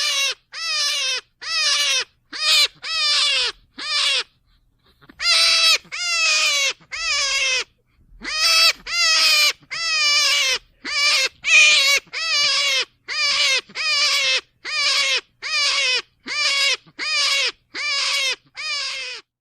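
Rabbit giving a long run of short, shrill cries, about two a second, each dropping in pitch at its end, with two brief pauses in the first half.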